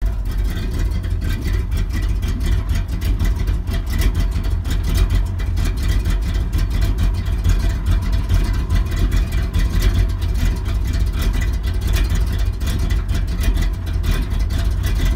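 Chevrolet C10's 350 small-block V8 idling steadily through Flowmaster Series 40 mufflers, a deep, even exhaust note.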